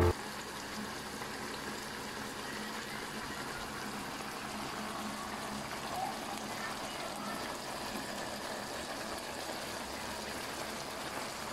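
Fish stewed in coconut milk simmering in a pan: a steady bubbling, with a brief knock right at the start.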